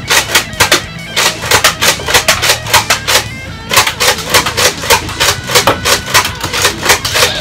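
Nerf Elite Alpha Trooper pump-action toy blaster being pumped and fired again and again: a quick run of sharp plastic clacks, about two to three a second, over background music.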